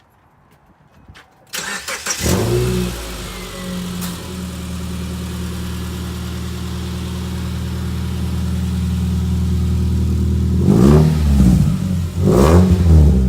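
Subaru flat-four boxer engine with a straight-piped exhaust (muffler and resonator deleted) cranking and catching about a second and a half in, then idling steadily. Near the end it is revved twice, the pitch rising and falling each time. The owner hears an exhaust leak somewhere in the new system.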